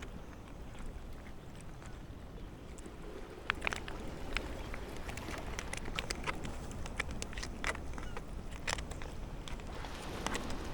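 Steady low outdoor rumble with a run of light, sharp clicks and rustles starting about three and a half seconds in.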